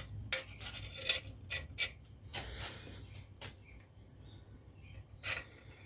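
Homemade Bulldog 15 power hammer set to hit very gently: a run of light metallic taps and clicks as the ram barely touches the die, with a short scraping rub about halfway and a sharper tap near the end.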